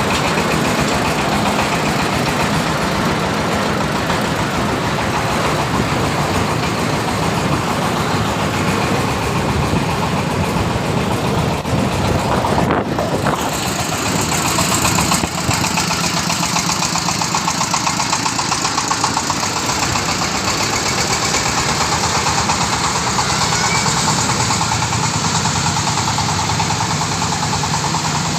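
Engine-driven corn sheller running steadily, its engine and threshing drum making a dense, continuous mechanical noise; the sound shifts in character about halfway through.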